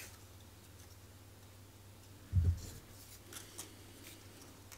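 Thin laser-cut basswood puzzle pieces being handled and slid together: a few faint wooden clicks, with one dull thump about two and a half seconds in.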